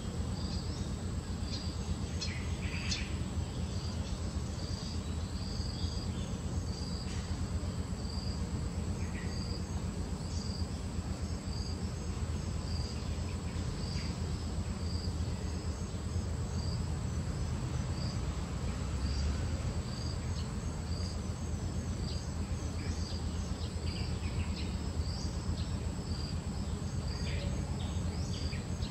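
Insects chirping: a high, evenly repeated chirp a little more than once a second over a steady high drone, with a low steady rumble underneath and a few faint clicks and rustles.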